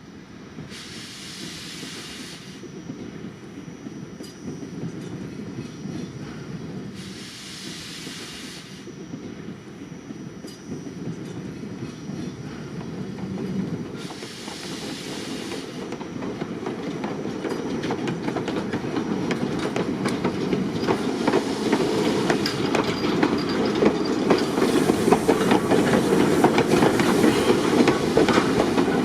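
Steam train rolling on the rails, its wheels clicking over the rail joints, the rumble growing steadily louder. Three bursts of steam hiss, about six to seven seconds apart, come in the first half.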